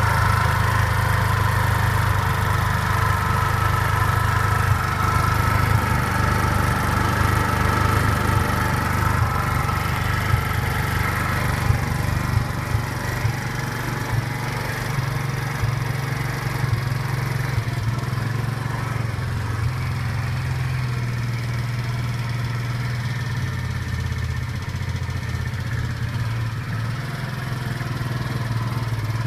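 Patron Avenue 150 Z's 150 cc four-stroke BN157QMJ-3 engine running steadily at low revs, with a knock that the owner cannot identify. The engine note drops slightly about twelve seconds in.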